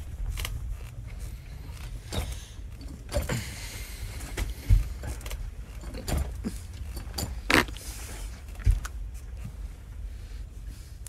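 Scattered knocks, clicks and rustling over a low steady rumble, with a soft rustle lasting a couple of seconds about three seconds in. The heaviest knocks come near the middle and toward the end.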